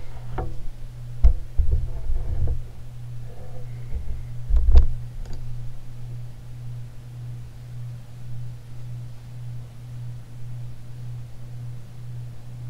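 Casablanca Hermosa ceiling fan's direct-drive motor running with a steady low hum over a rush of air. A few knocks and clicks sound in the first five seconds, the loudest about five seconds in.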